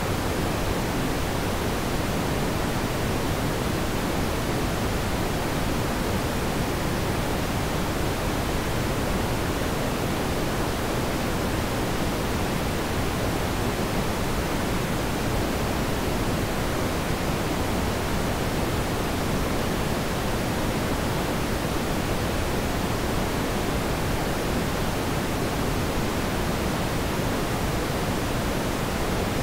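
Steady, unchanging rushing noise, deepest and strongest in the low range, with no engine note, voices or separate events.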